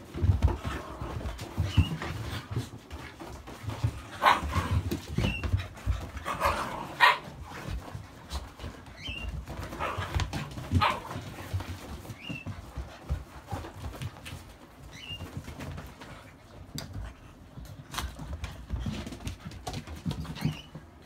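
Akitas, puppies among them, scuffling in play, with paws and bodies knocking and thumping on a rubber mat. A few short dog yelps come in the middle.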